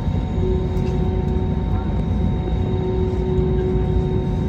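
Cabin noise inside an Airbus A321neo moving on the ground: a steady low engine rumble and hum with a held tone over it. There is no sign of power being added.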